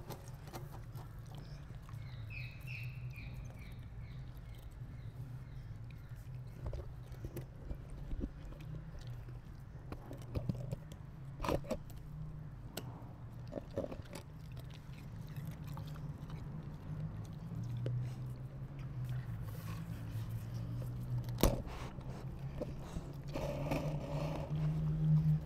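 Rottweiler puppy gnawing and crunching a raw carrot, with scattered sharp crunches and clicks, over a steady low hum.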